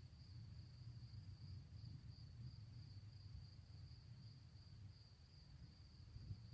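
Near silence: a faint, steady high-pitched trill over a low background rumble, with no shots.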